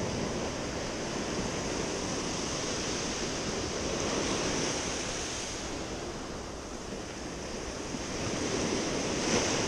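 Sea surf washing against the rocks, swelling and easing twice, with some wind on the microphone.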